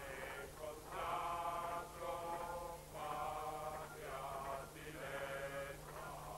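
A man singing a slow, chant-like tune on held notes, in phrases of about a second with short breaks between them.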